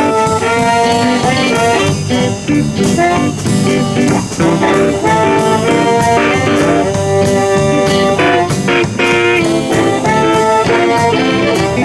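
Live electric blues band playing the instrumental intro of a song in the key of G, with electric guitar lines over bass and drums.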